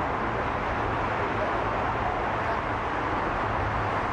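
Steady city background noise: a continuous hum of distant traffic.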